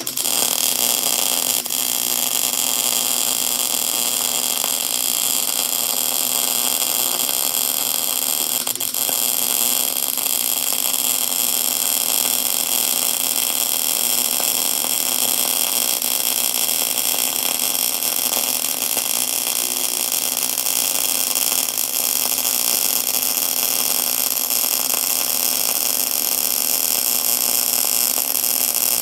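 Welding arc of an old Craftsman 110-volt welder, rewired to run above its rated amperage, laying a weld pass on thick, roughly quarter-inch steel. The arc strikes and then holds a loud, steady hiss.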